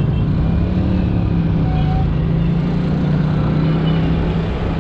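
Italika DT 125 motorcycle's single-cylinder four-stroke engine running at a steady pitch while riding, with low wind rumble on the microphone.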